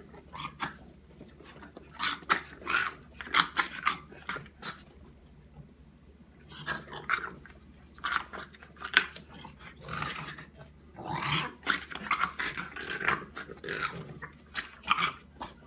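Dog reverse sneezing: rapid, forceful inhalations through the nose, coming in several bouts with short pauses between.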